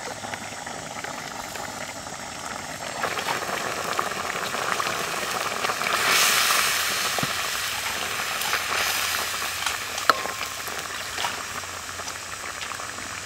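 Chicken curry bubbling steadily in a steel wok. A metal ladle stirs it about halfway through, louder for a second or so, and clinks against the pan a few times, once with a short ring.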